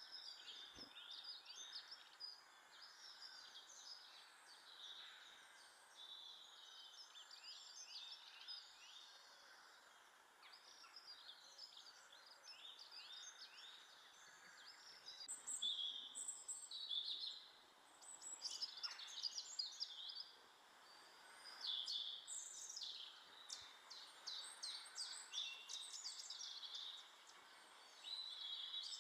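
Small garden birds calling, a dense run of short, high chirps and twitters, louder in bouts during the second half, over a faint steady hiss.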